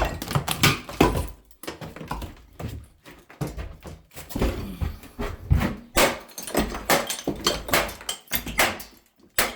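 Hammer smashing tiles off a shower wall: a run of irregular sharp knocks and cracks as the tiles break away.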